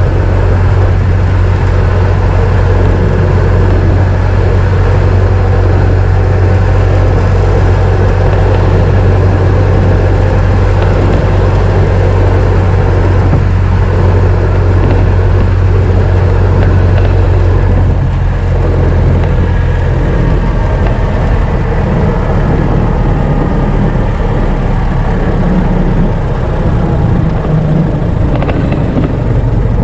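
1926 Ford Model T's four-cylinder engine running as the car drives, a steady low drone. A little over halfway through, the engine note changes and drops slightly in loudness.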